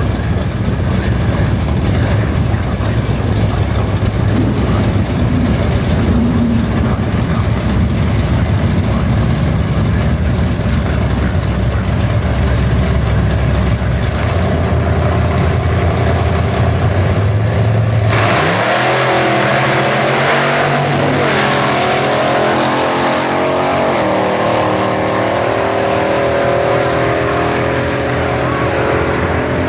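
Loud racing engine running steadily, then about two-thirds of the way through a hard launch: the engine note climbs sharply and keeps rising and dropping in steps as it accelerates away.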